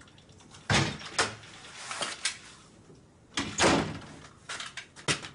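A wooden apartment front door being opened and shut: a series of sharp clicks and knocks from the lock, handle and door, the loudest about a second in and again past the middle, with a quick cluster of lighter knocks near the end.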